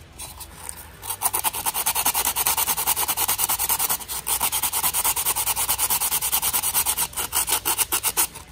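Coarse 60-grit sandpaper rubbed by hand in rapid short back-and-forth strokes against the inside wall of a carbon fiber mirror housing, a dry rasping scrape that starts about a second in and briefly pauses twice. The sanding roughens the wall and takes down thick spots so the glue can grip.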